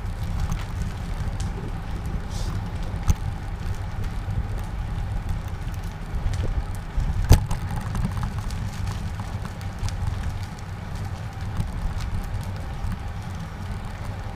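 Wind noise on the microphone and the rattle and tyre noise of a bicycle being ridden, with a few sharp knocks, the loudest about seven seconds in.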